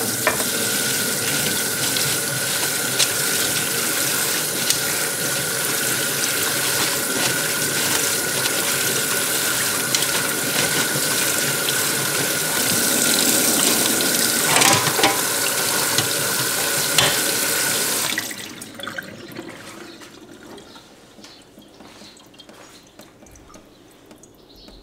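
Kitchen tap running hard into a stainless steel sink, water splashing over gooseberries in a colander as they are rinsed by hand, with a few knocks. The tap is turned off about three-quarters of the way through, leaving only faint sounds.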